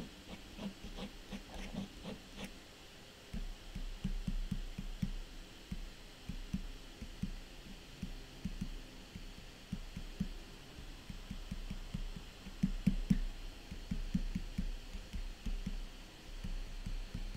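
White pen on toned paper being flicked in short, quick grass strokes: a run of soft taps and scratches, a few a second. A low hum comes in a few seconds in.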